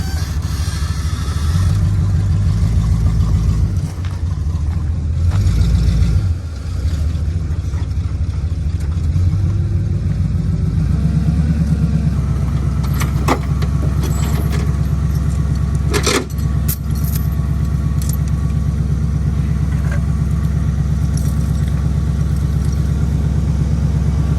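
Off-road tow truck's engine running steadily at low speed, a little louder in the first few seconds, with light rattling and a couple of sharp clicks about halfway through.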